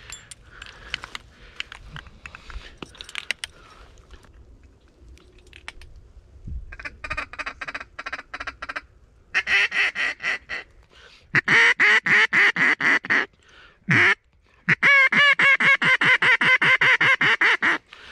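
Mallard duck call blown hard, in quick strings of loud hen quacks that start about seven seconds in, the longest string near the end. The calling is meant to turn a pair of incoming mallards toward the decoys.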